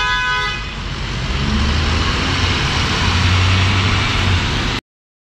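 City street traffic: a vehicle horn sounds and stops under a second in, then engines run with a low rumble that grows louder. The sound cuts off abruptly near the end.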